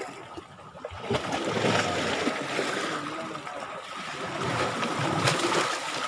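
Water splashing and trickling, swelling and fading unevenly, loudest near the end.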